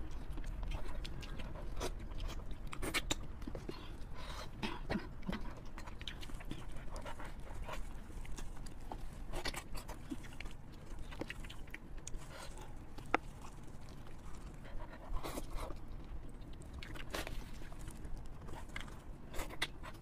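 Close-miked eating sounds: wet chewing and lip smacks, with irregular squelches and clicks as plastic-gloved hands pull apart a braised sheep's head in chili broth.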